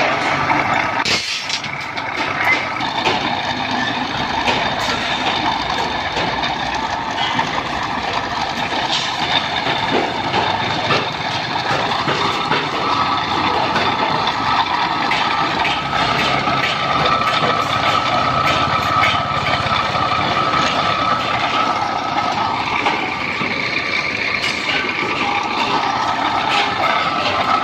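GQ-type rebar cutting machine running, its motor and gearing giving a steady mechanical hum with a high whine, with a few sharp clacks along the way.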